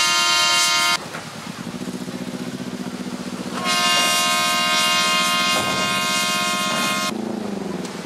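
A horn blows two long steady blasts: the first cuts off about a second in, and the second starts a few seconds later and holds for about three and a half seconds. Under both, an engine runs with an even pulse and briefly drops in pitch near the end.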